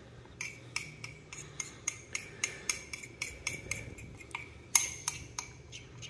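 Metal utensil clinking against a ceramic mug while stirring or scraping a thick soft food, in a quick, uneven run of light taps, about three to four a second, each with a short ring.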